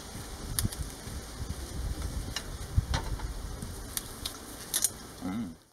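Outdoor ambience: a low rumble and light hiss with scattered short high ticks. A brief voice-like sound comes near the end, then the sound cuts off.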